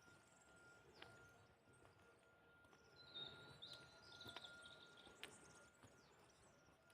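Near silence: faint outdoor ambience with distant birds, including a brief twittering about halfway through.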